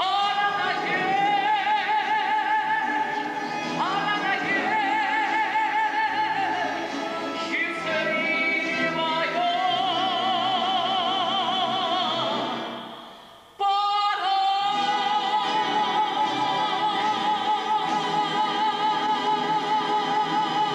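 Music: operatic-style singing with a wide vibrato over instrumental accompaniment. The music fades out about thirteen seconds in and starts again straight away.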